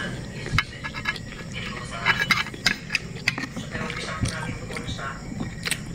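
Close-miked eating sounds: a child chewing a mouthful, with short sharp clicks and smacks scattered through.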